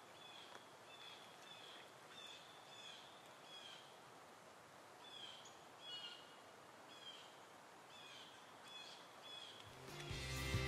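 A small bird chirping faintly over quiet outdoor background noise, short downward-sweeping calls repeated roughly every half second with a short pause midway. Music fades in near the end.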